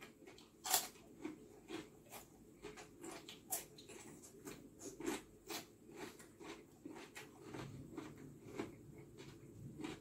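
A person eating soup and bread close to the microphone: faint chewing with small irregular clicks, a few a second.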